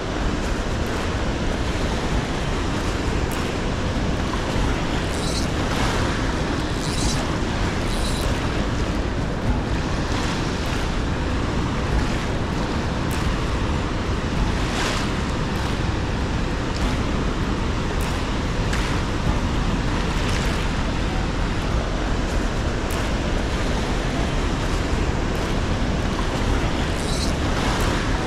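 Tailwater river flowing fast over rocks: a steady rushing noise, with brief brighter splashes now and then.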